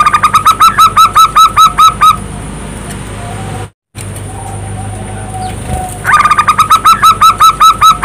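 Zebra dove (perkutut) singing: a rising opening note, then a rapid string of about a dozen short cooing notes, about six a second. The run comes twice, once at the start and again from about six seconds in, with a brief cut to silence between. A faint steady hum runs underneath.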